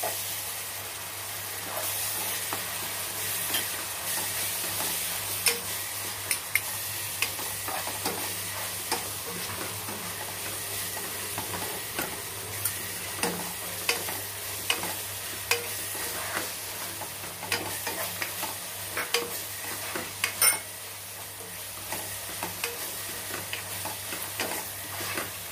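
Onion-tomato masala frying in ghee and oil in a pan, a steady sizzle, while a spatula stirs it, knocking and scraping against the pan in many small irregular clicks.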